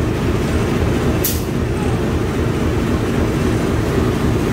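CC 201 diesel-electric locomotive idling at a standstill, a steady low rumble, with a short hiss of released air from the train's air system about a second in.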